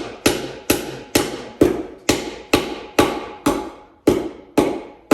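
Hammer driving cement-coated sinker nails into rough-cut hardwood: a steady run of sharp, ringing blows, about two a second.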